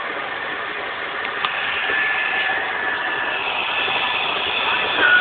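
Carpet cleaning machine running: a steady hiss of motor and airflow with high whining tones that shift slightly in pitch, a single click about a second and a half in, and a little louder near the end.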